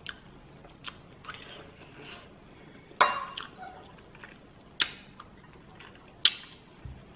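Someone eating instant noodles: quiet chewing, with a few sharp clinks of a metal spoon against a ceramic bowl. The loudest clink comes about three seconds in, and two more come near five and six seconds.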